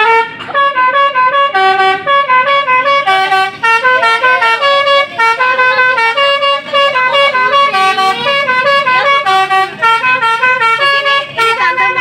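Bus telolet horn, a Basuri multi-tone musical horn, playing a quick melody of short stepped notes one after another without a break.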